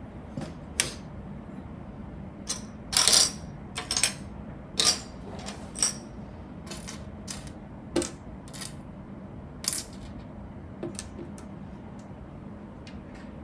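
Small plastic Lego pieces clicking and clattering irregularly as they are handled and pressed together, with a louder run of rattles a few seconds in.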